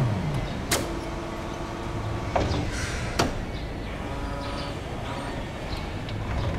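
BT RRE-140 electric reach truck working its hydraulics: an electric pump whine that comes and goes over a steady low hum, with three sharp clanks from the mast and carriage, about a second in and again around two and a half and three seconds in.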